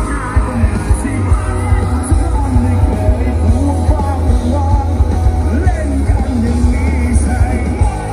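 Loud music with a singing voice over a heavy bass line.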